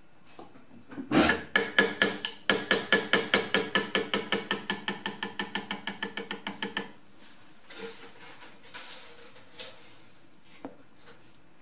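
A small hammer rapidly tapping a pin punch against the steel slide of a CZ75 SP01 Shadow pistol, driving out the 1.75 mm front-sight pin. The taps ring, come about eight a second for nearly six seconds, then stop, followed by a few scattered quieter knocks.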